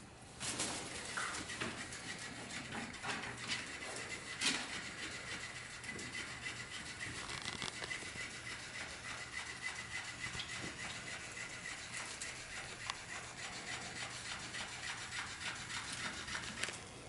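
A puppy chewing and pawing a fabric fish toy: scratchy rubbing and rustling with many scattered clicks, the loudest about four and a half seconds in.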